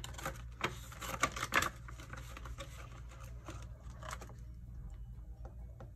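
Paper banknotes and the binder's clear plastic pockets rustling as cash is tucked into a pocket and a page of the binder is turned. A quick run of soft clicks and crinkles, busiest in the first two seconds and thinner after.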